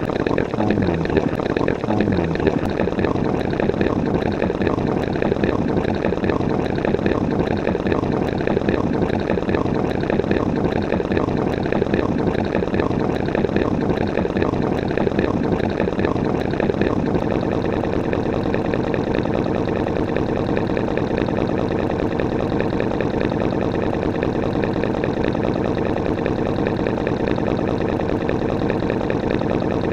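A dense, steady wall of many copies of a sound effect layered over one another, blurred into a continuous wash in which no single sound stands out.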